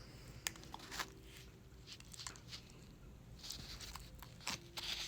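Colombian fino hound puppy moving about and chewing: scattered small clicks, nibbling and scuffling sounds.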